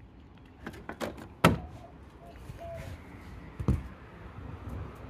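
Car battery being lifted out of its tray, its case knocking and clunking against the tray and nearby parts. The loudest knock comes about one and a half seconds in, and a duller thud follows a couple of seconds later.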